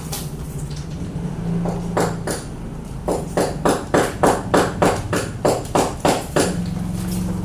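Quick, evenly spaced strokes of paper-craft work on paper, about three a second, starting about three seconds in, over a steady low hum.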